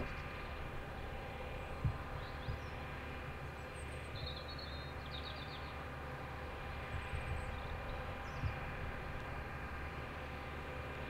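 Steady hum of distant machinery, with a few short bird chirps in several bursts and two faint thumps, one about two seconds in and one near the end.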